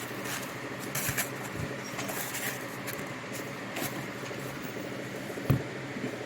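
Handling noise of a small pistol weapon light being turned over in the hands: scattered light clicks and rustles, with one heavier knock about five and a half seconds in.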